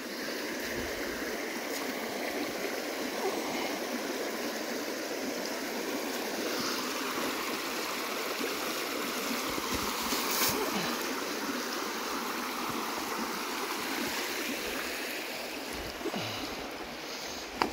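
Mountain stream running steadily, a constant rush of flowing water.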